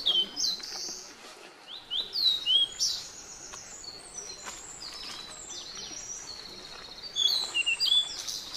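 Birds chirping: clusters of short, high, falling whistled notes near the start, about two seconds in and again near the end, over a steady outdoor background hiss.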